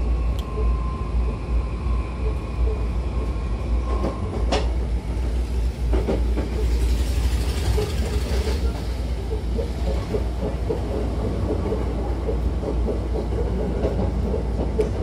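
Hankyu commuter train running, heard from inside the carriage: a steady rumble from the running gear. A faint steady tone fades out about four seconds in, and a single sharp click follows just after.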